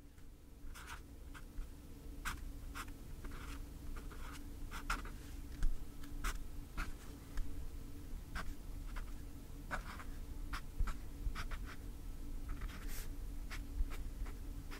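Pen writing on paper close to the microphone: irregular short scratchy strokes and light taps, over a faint steady hum.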